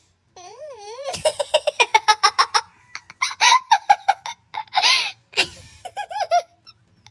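A person laughing: a wavering high voice, then a fast run of giggles at several pulses a second, followed by further bursts of laughter.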